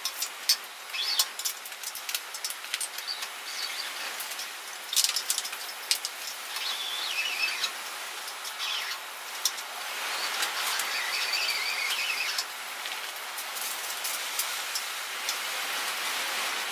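Cables and a torch lead being handled and hung up overhead: irregular clicks and knocks, with two stretches of wavering squeaks as they rub.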